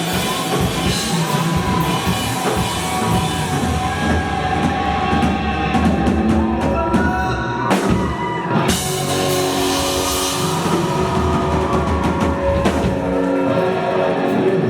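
Rock band playing live: drum kit, guitars and bass. The cymbals drop out briefly about seven and a half seconds in, then come back with a sharp hit.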